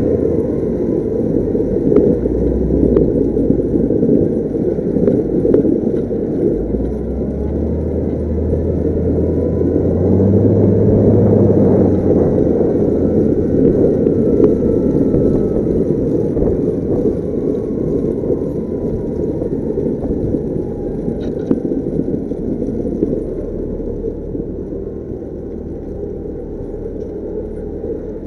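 Volvo L110F wheel loader's diesel engine running as the machine drives, heard from inside the cab. It revs up and gets louder about ten seconds in, then settles back and slowly quietens toward the end.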